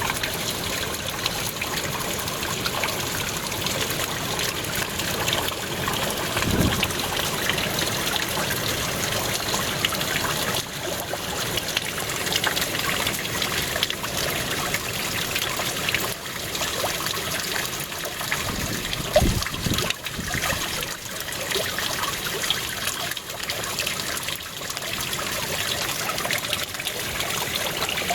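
Water running and splashing down a small stream waterfall in a steady trickling rush. Two short low thumps break in, one about six seconds in and a louder one about two-thirds of the way through.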